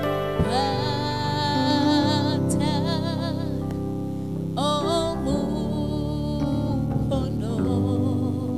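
A woman singing a worship song into a microphone, with wavering vibrato on held notes, in phrases with short breaks. Sustained electric keyboard chords play beneath her.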